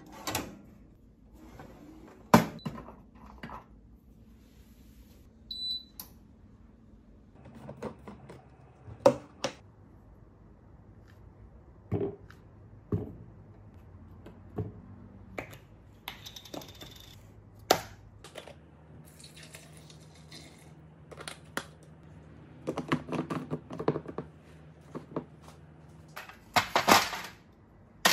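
Kitchen handling sounds: a string of sharp knocks and clicks as dishes, containers and a blender cup are set down and handled, with a short electronic beep about six seconds in. Near the end comes a rattling clatter of ice cubes being worked loose in a plastic ice tray.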